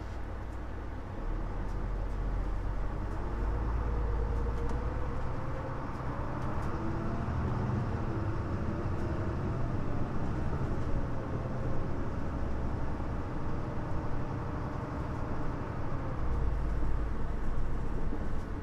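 Running sound of a Mitsubishi Fuso LKG-MP37FM city bus under way: diesel engine and drivetrain with road noise, growing louder about a second in. Faint whines rise and fall in pitch with the engine's speed.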